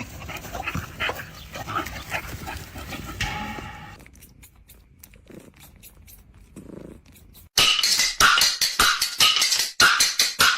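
A dog vocalizing low for a few seconds, then after a quiet pause a fast run of loud, sharp knocks or slaps, about five a second.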